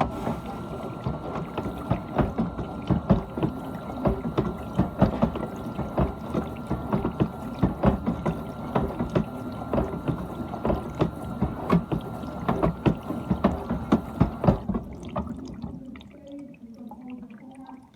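GE dishwasher's wash pump and spray arms running, water splashing irregularly against the inside of the tub with a steady high tone. It starts suddenly and cuts off about 14.5 seconds in.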